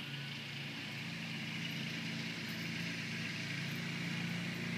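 Steady low motor hum with a faint hiss above it, slowly getting a little louder.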